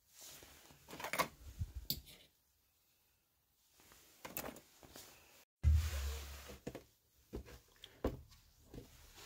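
Handling noises from metal workshop parts: scattered light knocks, clicks and scrapes with pauses between them, and a brief low thump a little past halfway.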